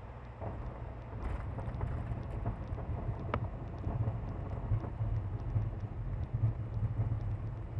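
Steady low drone of a Cirrus SR22's six-cylinder Continental engine and the airflow, heard from inside the cockpit. The engine has been running rough since its annual, which the owner later traced to a missing gasket on the #2 cylinder's fuel injector letting that cylinder run lean.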